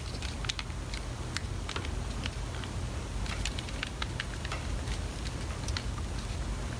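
Small, irregular clicks and ticks of a tool prying at the snap-fit plastic side cover of a Panasonic ES-RL21 electric shaver, over a steady low hum.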